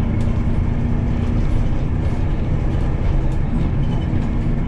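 Steady engine and road rumble heard from inside a moving bus.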